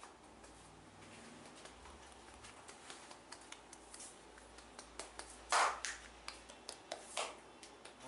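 Hands massaging a man's head: a string of small crisp taps and clicks of fingers working through the hair and on the scalp, with two louder rubbing swishes about five and a half and seven seconds in.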